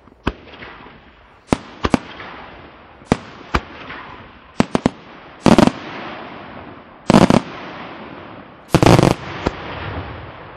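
Aerial firework shells from a Senatore Fireworks display bursting in the sky. A string of sharp single bangs is followed by three longer, louder blasts about a second and a half apart, each with a rumbling echo trailing between the reports.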